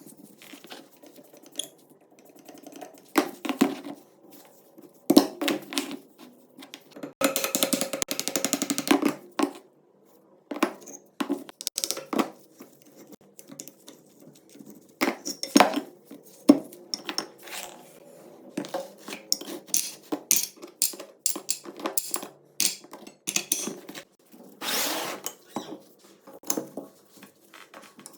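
Metal parts of a rusty shotgun being handled and worked on: repeated sharp clinks, taps and knocks of metal on metal. There are two stretches of quick rasping scraping, a long one about seven seconds in and a shorter one near the end.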